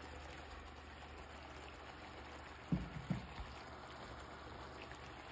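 Chicken breast steaks cooking in a frying pan in oil and a freshly poured garlic-lemon marinade: a soft, steady sizzling hiss. Two short louder sounds break in a little past halfway.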